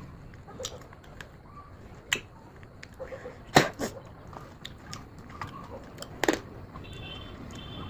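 Fruit being bitten and chewed: a handful of sharp crunches and mouth clicks, the loudest about three and a half seconds in and another a little past six seconds.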